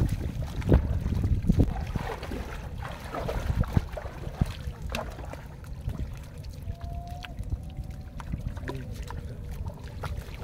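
Shallow river water sloshing and trickling in a fine-mesh fishing net, with scattered small splashes. A low wind rumble on the microphone is stronger in the first few seconds.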